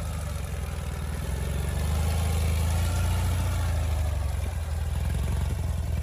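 Ural sidecar motorcycle's flat-twin engine running, getting louder about two seconds in and then holding steady.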